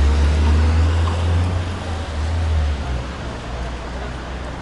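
City street traffic noise: a low vehicle engine rumble, loudest for the first three seconds or so and then fading.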